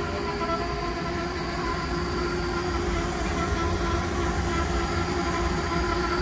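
MacNeil tunnel car wash machinery running: the conveyor and equipment motors give a steady hum, with several held tones over a low rumble.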